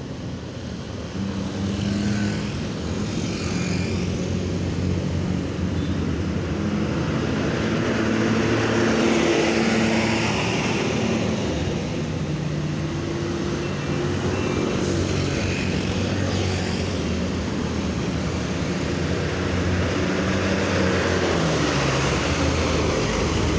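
Heavy diesel buses and trucks running past on a road, their engine drone shifting in pitch every few seconds. Near the end one passes close with a falling pitch.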